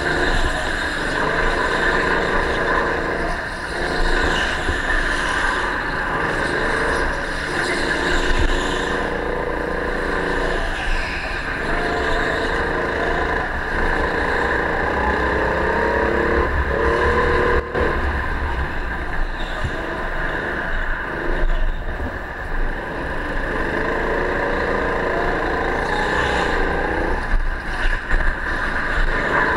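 Go-kart heard from on board, its motor running hard through laps, the pitch rising and falling again and again as the driver accelerates and lifts through the corners, over a steady high-pitched drone. One sharp knock about two-thirds of the way through.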